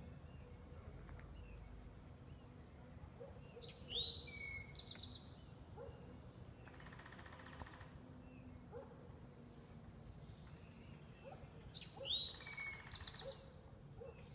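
A songbird singing the same short phrase twice, about eight seconds apart: a rising whistled note followed by a quick trill. A brief buzzy rattle comes in between, over a steady low background rumble.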